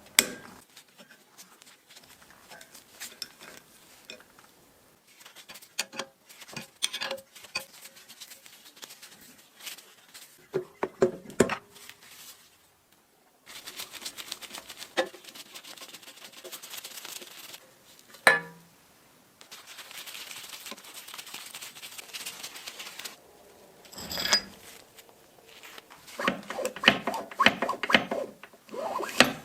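Metal parts and hand tools of a bench drill press clinking, knocking and scraping as it is taken apart, with two stretches of steady hiss midway and a dense run of rattling knocks near the end.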